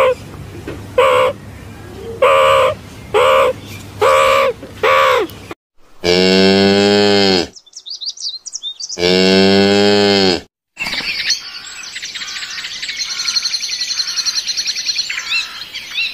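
A meerkat calling: about six short, sharp calls in a row. Then a dairy cow mooing twice in long, deep moos, with faint high chirping in the gap between them, and after that a long run of rapid, high-pitched chirping over a hiss.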